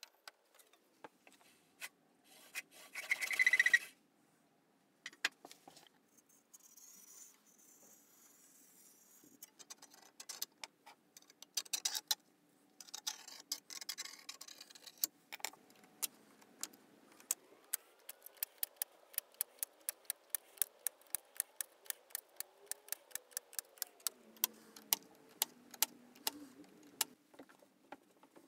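A hand saw set worked tooth by tooth along the saw plate, giving sharp metallic clicks at about three a second over the second half, as the teeth are set. Before that, scattered handling knocks and a short loud scrape about three seconds in.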